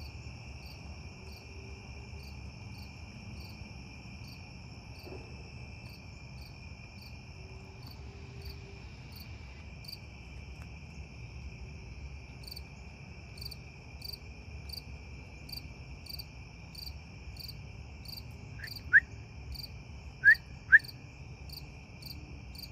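Steady evening chorus of crickets and other insects: an unbroken high trill under an even chirping about twice a second. Near the end come a few short, loud, sharp chirps.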